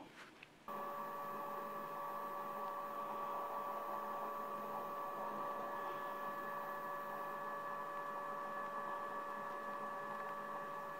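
Hot air rework gun blowing steadily on a circuit board to melt the solder of a micro USB port, an even hiss with a steady fan whine. It comes in abruptly about a second in.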